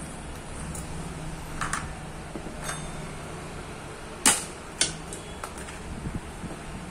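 A few sharp clicks and knocks, as of tools and small metal parts being handled during bicycle gear repair, over a steady low hum. The loudest knock comes about four seconds in, with another half a second later.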